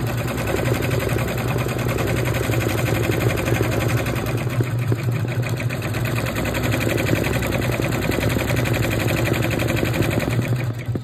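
Brother Entrepreneur 6-Plus PR670E six-needle embroidery machine stitching at speed: a fast, steady clatter of the needle bar over a constant motor hum.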